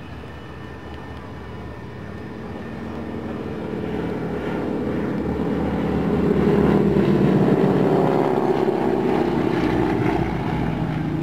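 Two North American AT-6 Harvards flying past in formation, their Pratt & Whitney R-1340 nine-cylinder radial engines and two-bladed propellers growing steadily louder to a peak as the pair passes overhead about seven seconds in. The note then eases a little and drops in pitch as they move away.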